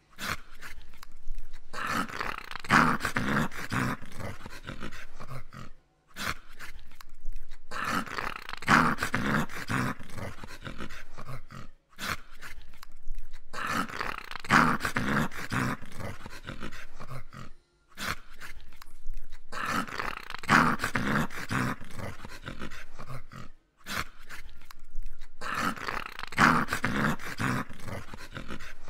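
English cocker spaniel growling in long bouts that come about every six seconds, each breaking off into a brief silence.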